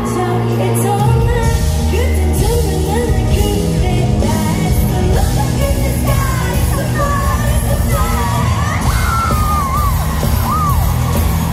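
Pop song performed live over a loud sound system: a woman sings high, gliding vocal lines over a heavy bass beat, which comes back in about a second in, with yells from the audience.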